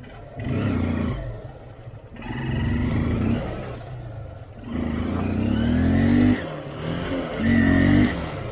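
Motorcycle engine revved in four short bursts of throttle, with the third climbing in pitch as it is held longer, dropping back between bursts.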